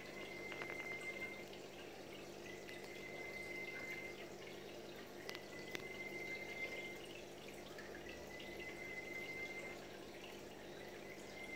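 Aquarium water trickling and dripping over a steady low hum, with a few faint clicks. A faint high-pitched tone sounds for a second or so, about every two and a half seconds.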